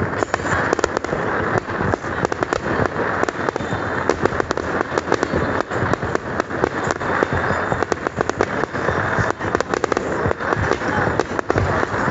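Aerial fireworks display: a dense, unbroken barrage of bangs and crackling reports, many in quick succession, at a steady loud level.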